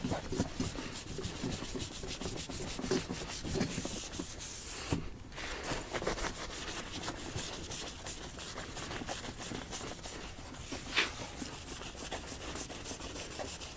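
Windshield glass being rubbed by hand in circular motions to decontaminate it before bonding: steady scrubbing strokes with a short break about five seconds in.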